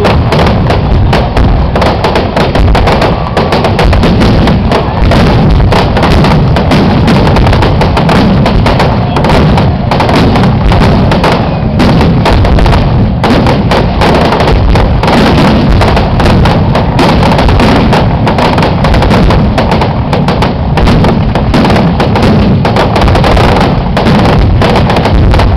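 Aerial fireworks barrage: shell bursts booming one over another in a rapid, unbroken string, very loud throughout.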